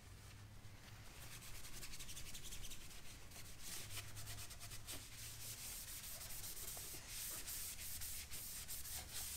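A gasoline-dampened cloth rag rubbed back and forth in quick strokes on a Suzuki DR-Z400's metal exhaust pipe, scrubbing off rubber residue.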